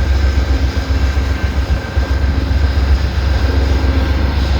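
Strong wind buffeting the microphone in a blizzard, a heavy gusting rumble, with the steady hum of an idling train locomotive underneath.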